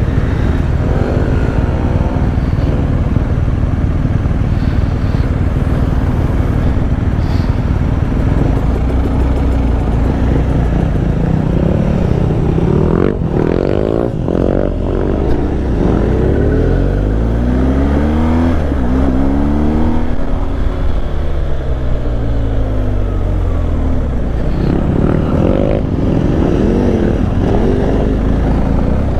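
Adventure motorcycle engine running, its pitch rising and falling repeatedly as the throttle opens and closes. A couple of sharp knocks come about halfway through.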